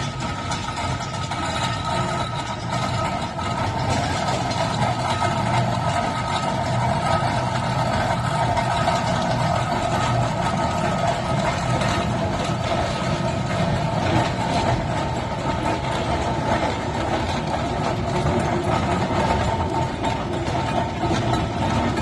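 Fowler steam ploughing engine running steadily, a continuous mechanical working noise with a faint steady whine in it.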